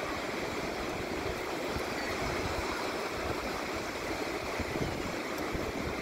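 Strong wind gusting over the microphone with a low buffeting, over the steady wash of sea surf breaking on a sandy beach.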